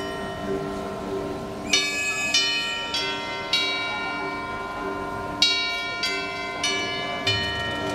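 Marching band front-ensemble tubular bells (chimes) struck one note at a time, about eight strikes in loose groups, each note ringing on. Underneath, a soft repeating two-note mallet-keyboard figure.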